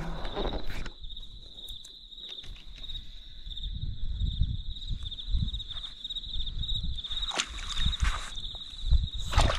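Crickets chirping steadily in a continuous high-pitched trill, over a low rumble and a few scattered knocks and rustles.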